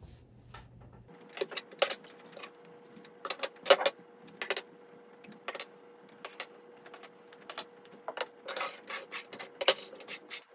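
Wera Hex-Plus Multicolour hex keys set down one after another on a wooden tabletop: an irregular string of light clicks and clacks, with a few sharper ones about two and four seconds in and a quick run of them near the end.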